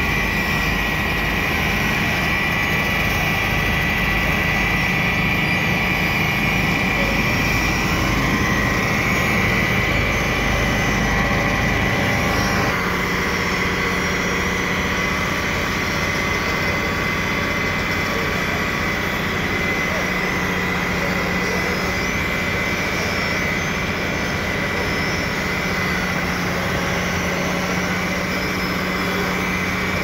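Diesel engines of road-paving machinery running steadily: an asphalt paver fed by a tipper truck, then road rollers compacting fresh asphalt after a change about thirteen seconds in. A steady high whine runs throughout.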